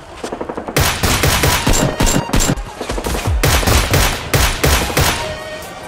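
Rapid gunfire, many shots fired in quick bursts, thinning out near the end.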